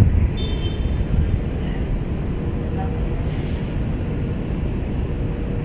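A steady low rumble, with an insect chirping faintly in short, evenly spaced chirps about twice a second.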